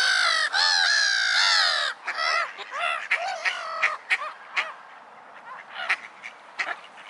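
A flock of pond waterbirds calling: many overlapping harsh, nasal calls, dense and loud for about the first two seconds, then scattered single calls.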